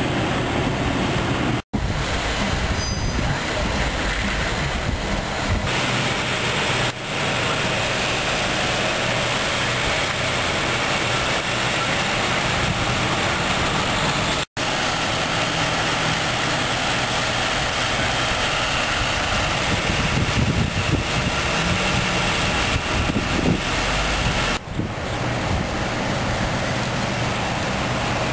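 Steady outdoor road and traffic noise, with heavy vehicles such as trucks passing, as a continuous rushing hum. The sound drops out to silence for an instant twice.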